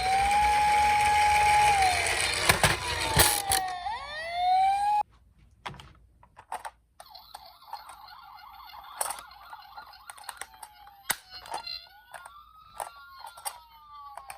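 Toy ambulance minicars' electronic sirens. A loud siren wails up and down and cuts off suddenly about five seconds in. After some quiet clicks and knocks, a fainter wailing siren starts near the end.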